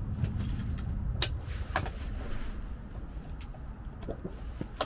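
Handling noise from a bipod-mounted rifle being lowered and repositioned on a shooting bench: a few sharp clicks and knocks, the loudest a little over a second in, over a steady low rumble.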